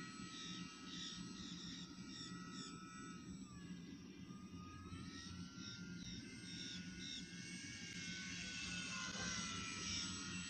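Radio-controlled model airplane's motor whining overhead, its pitch dropping and recovering twice as it flies past and turns.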